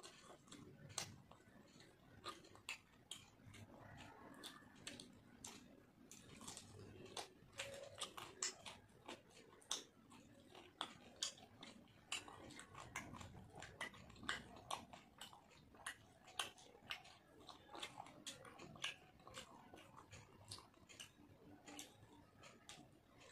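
Faint close-up eating sounds: a person chewing food, with many short, sharp mouth smacks and clicks, about two or three a second.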